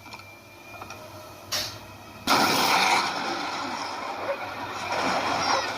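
Fairly quiet at first, with a short burst about one and a half seconds in. Then, a little over two seconds in, a sudden loud rushing noise starts and carries on.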